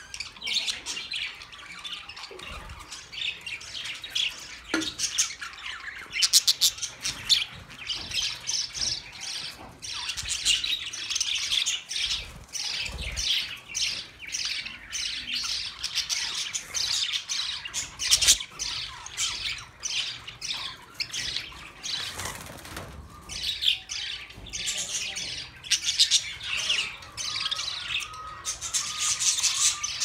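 A flock of budgerigars chattering continuously, a dense stream of short, high chirps overlapping without pause.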